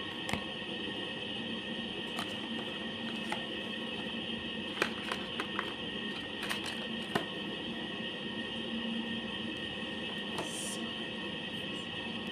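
Scattered clicks and light knocks of a new smartphone's box and packaging being handled and opened, over a steady background hum.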